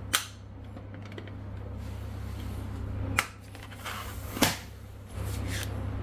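White plastic switch housing and trunking cover being pressed together by hand, snapping into place with three sharp plastic clicks, the loudest about four and a half seconds in. A low hum runs underneath and drops out for a couple of seconds after the middle.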